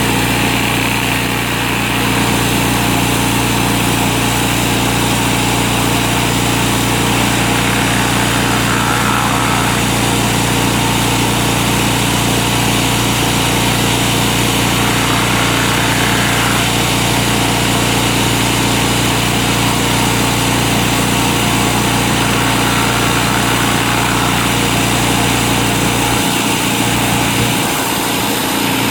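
Gas-engine pressure washer running steadily, its engine hum under the hiss of high-pressure water spraying concrete. The deepest part of the hum drops away near the end.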